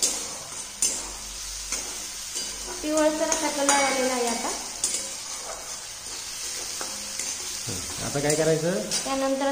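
A steel spatula stirring and scraping an onion, tomato and peanut masala frying in oil in a steel kadhai, with a steady sizzle and a few sharp clinks of the spatula against the pan.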